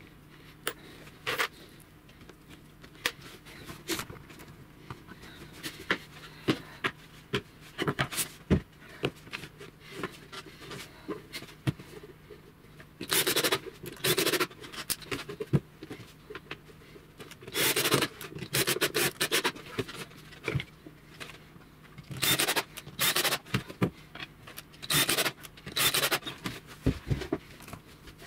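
Laminated plywood table parts being handled on a wooden workbench: scattered knocks and clicks, then several short scraping bursts in the second half.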